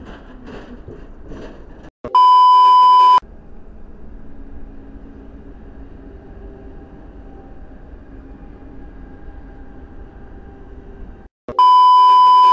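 Test-tone beep of the kind played with TV color bars: a loud steady pure tone lasting about a second, heard twice, about nine seconds apart. A much quieter steady background noise runs between the two beeps.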